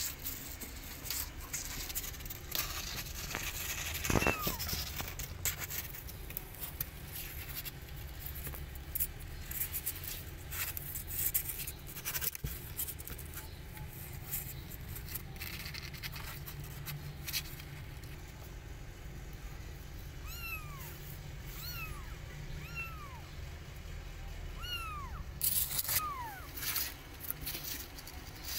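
Young kittens mewing: short, high cries that fall in pitch, one about four seconds in, then a string of them near the end, typical of kittens calling for their mother. Between the cries there are scratches and rustles as the kittens clamber about a cardboard box lined with cloth.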